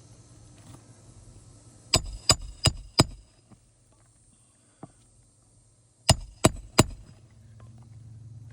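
Hammer blows ringing on metal: four quick strikes about a third of a second apart, then after a pause three more, as roofing nails are driven back in under a shingle.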